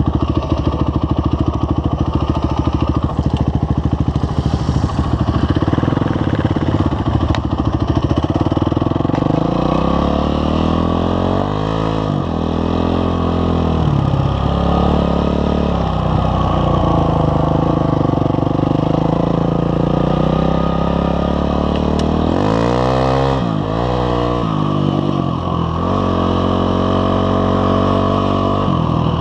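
Honda CRF250X dirt bike's single-cylinder four-stroke engine under way on a trail. It runs steadily at first, then rises and falls in pitch again and again as the rider works the throttle and gears, with a quick drop and climb a little past two-thirds of the way in.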